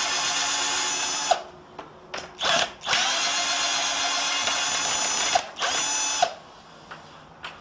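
Electric drill-driver running in bursts while backing screws out of the wooden frame: a long run, a short blip, a longer run of about two and a half seconds, then another short blip, each a steady whine.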